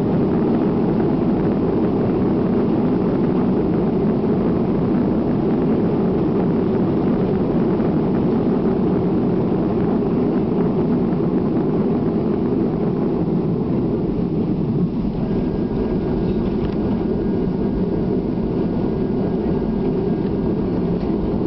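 Jet airliner cabin noise during the landing rollout, with spoilers raised: a loud, steady rumble of engines and wheels on the runway. About two-thirds of the way in it eases slightly and a faint steady high whine joins it.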